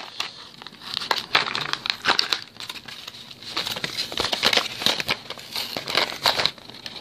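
Stiff plastic blister packaging crinkling and crackling as it is forced open by hand, in a run of irregular sharp crackles.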